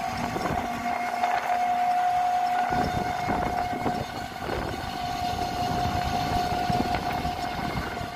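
Open-sided tuk-tuk riding along a road: a steady high whine runs throughout over rushing road and wind noise.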